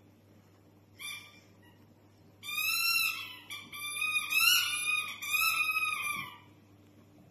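Portuguese water dog puppy whining in high, wavering cries: a short whine about a second in, then a run of joined whines lasting about four seconds.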